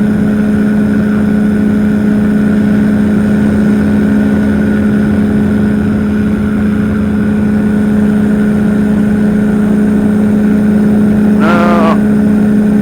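Powered parachute engine and propeller running at a steady cruise, a loud constant drone with a fixed pitch. A short voice sound is heard near the end.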